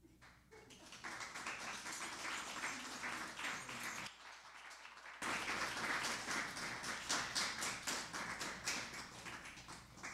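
Audience applauding, with a dense patter of many hands clapping. It dips briefly about four seconds in, comes back louder with sharp individual claps, and thins out near the end.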